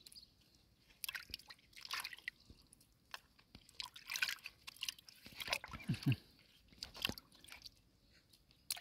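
Hands splashing and squelching in shallow muddy water while digging freshwater clams out of the mud: irregular wet splashes, drips and sloshes a second or so apart.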